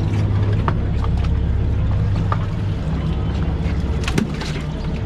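Fishing boat's engine running at low speed, a steady low drone that eases a little partway through, with scattered small knocks and one louder knock about four seconds in.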